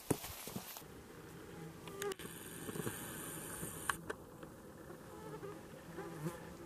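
Flying insects buzzing, a low hum that wavers and swells in and out, with a few faint taps.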